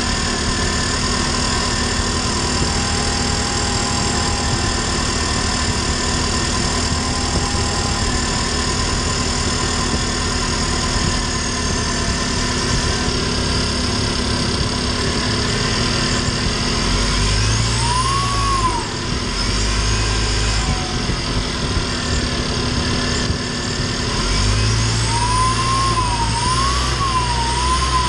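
LDV G10 van's turbocharged petrol engine running at road speed, heard from inside the cabin, with a faint steady high whistle over the engine and road noise. About two-thirds of the way in, an emergency-vehicle siren starts sweeping up and down, then repeats in quicker wails near the end.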